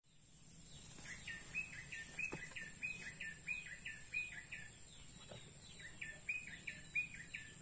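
A bird calling a quick series of short, repeated notes, about six in a row and a little over two a second, then a second run like it later on, over a steady high-pitched drone.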